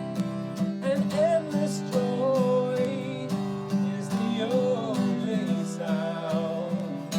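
Worship band playing an instrumental passage: strummed acoustic guitar and held chords over a steady beat, with a wavering melody line on top.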